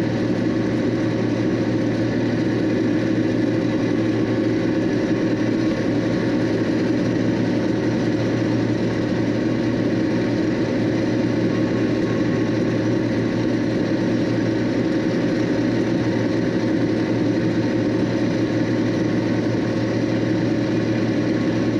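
John Deere 6620 combine running steadily under load while harvesting soybeans: a constant engine and machinery drone with several fixed tones, no changes in pace.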